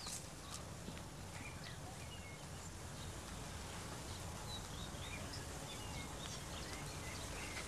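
Small birds chirping now and then over a steady low background rumble and hiss.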